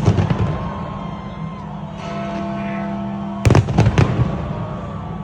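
Fireworks bursting in two quick clusters of bangs, one right at the start and another about three and a half seconds in, over music with steady held chords.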